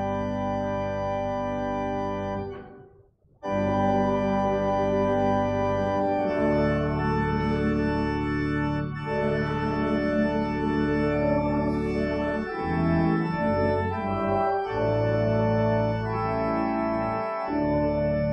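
Church organ playing sustained chords. One held chord fades out about three seconds in, and after a brief pause the organ carries on with a slow run of changing chords.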